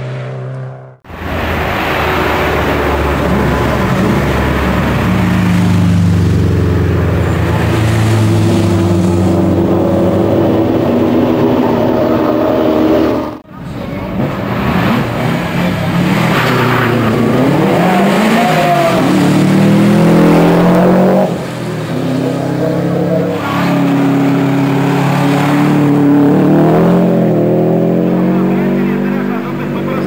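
Subaru Impreza rally cars' turbocharged flat-four engines at full throttle, rising in pitch as they accelerate and dropping back at each gear change, several times over. The sound breaks off abruptly twice, about a second in and again about halfway.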